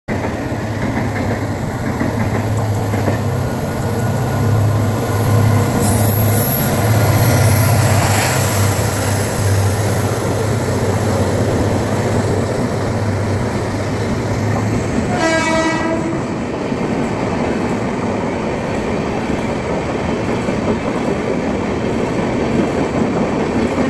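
WDP-4D diesel locomotive with its EMD 16-710 two-stroke engine running through at speed, with a deep pulsing engine throb, then its train of passenger coaches passing in a steady rush of wheel noise and clickety-clack. A train horn sounds once, briefly, about fifteen seconds in.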